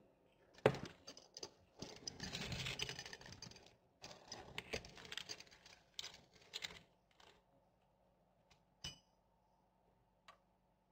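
Glass marbles clicking and clinking against each other, with bouts of rustling, as a guinea pig moves among them; busy for the first several seconds, then a few single clinks.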